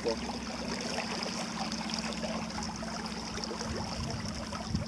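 Water splashing and trickling along the hull of a small fishing boat under way, over a steady low hum.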